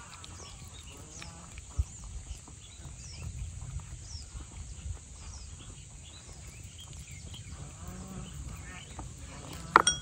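Animal calls and short high chirps over a low rumble, with one sharp loud click near the end.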